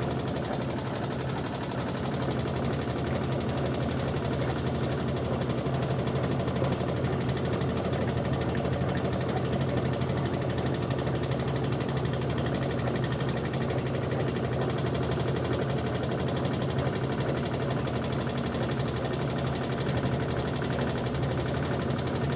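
Turbo LT11F 10 kg washing machine running steadily with a load of floor cloths, a constant motor hum.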